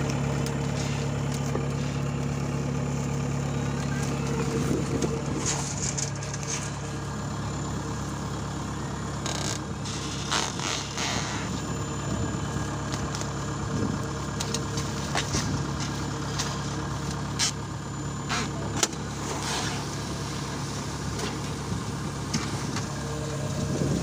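Kubota DC70 combine harvester's diesel engine running steadily at the grain outlet, with intermittent clattering while shelled corn is bagged.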